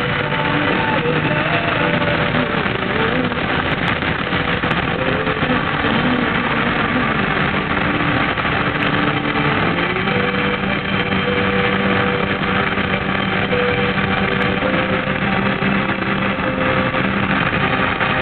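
A moving car: steady road and wind noise with an engine hum under it. The hum's pitch shifts slightly and settles at a new steady level about ten seconds in.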